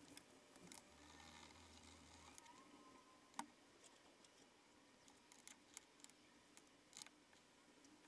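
Near silence with a few faint clicks and taps as brass handle pins and handle slabs are handled on a wooden workbench, one sharper click about three and a half seconds in.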